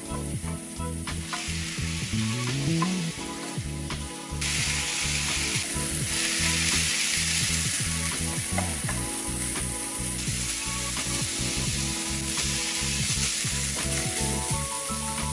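Ground beef, diced onion and green peppers sizzling in a nonstick frying pan while a wooden spoon stirs and scrapes through them. The sizzle grows louder about four seconds in.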